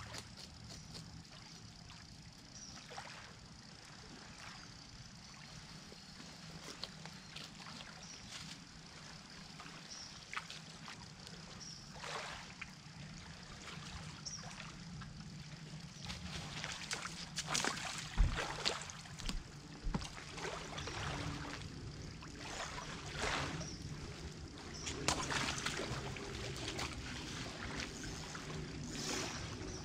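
Faint lapping and trickling of lake water at the shoreline, with scattered small knocks, clicks and scrapes of hands at work that come more often in the second half.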